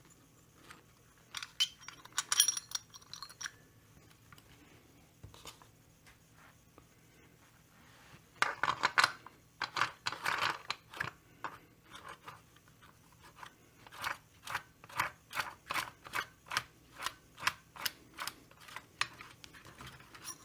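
Small metal clicks and clinks as a Stihl 025 chainsaw's clutch assembly, its shoes and springs, is fitted onto the crankshaft and turned by hand; a cluster of clicks about halfway through, then a regular run of about two clicks a second near the end.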